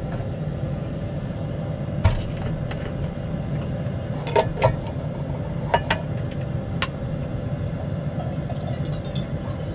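Metal camping cook pot clinking and knocking as it is opened and handled, with about half a dozen sharp clinks, then water poured from a plastic bottle into the pot near the end. A steady low hum runs underneath.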